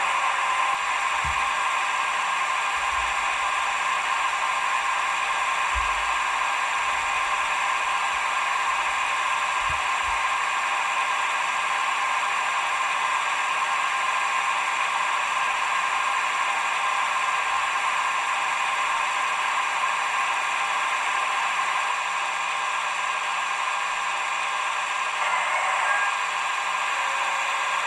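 Roco H0 EDK 750 railway crane model running its digital sound through its small onboard speaker: a steady, noisy whir of crane operating sounds as the winch lowers the hook and the boom swings down. A few dull low knocks come in the first ten seconds.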